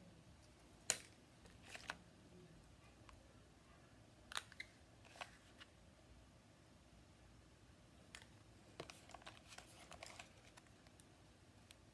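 Faint clicks and crinkles of a small blister-packed plastic toy being handled, over near silence: a sharp click about a second in, a few more around four to five seconds in, and a run of small clicks near the end.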